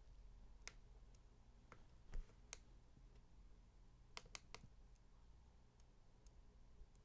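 Faint, scattered small clicks and taps from hands handling a USB amp meter and the connectors of an opened iPad's logic board, with a soft thump about two seconds in and a quick cluster of three clicks a little past four seconds.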